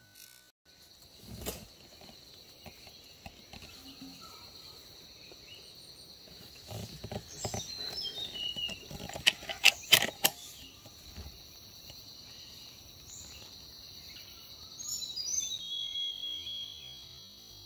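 Forest ambience: a steady high insect drone with short descending bird chirps twice, about halfway through and again near the end. A quick run of four sharp clicks, the loudest sounds, comes a little after halfway.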